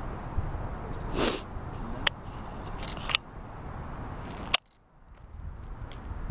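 A DSLR's shutter clicks three times, roughly a second apart, over a steady outdoor noise bed, with a short breathy rush about a second in. After the third click the background cuts out abruptly to near silence and then slowly comes back.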